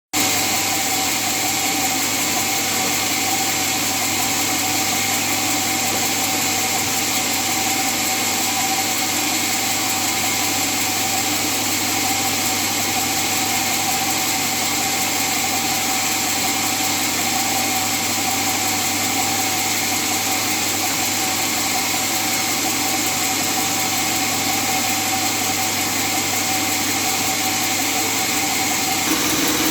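Sawmill machinery running with a steady mechanical hum and a few held tones, changing slightly just before the end.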